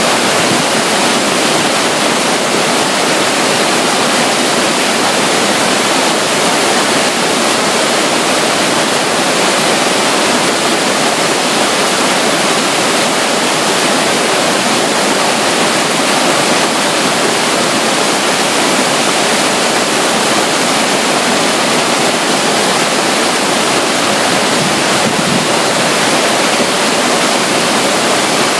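Loud, steady rush of running water from a tiny trickle of water flowing at the side of a river near a waterfall, unchanging throughout.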